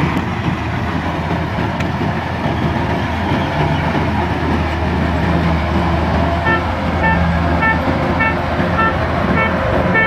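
Tracked rice combine harvester's engine running steadily as the machine travels. About two-thirds of the way in, an electronic alarm starts beeping, roughly one and a half beeps a second.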